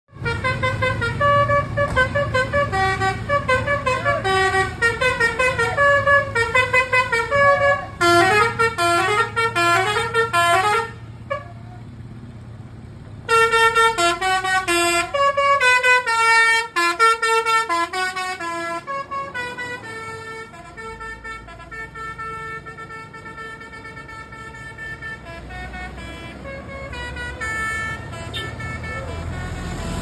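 A bus's telolet horn, a Basuri multi-tone air horn, playing a fast tune of short notes that hop up and down, with a break of about two seconds partway through. The notes then grow quieter and more drawn out, over the low hum of the bus engine.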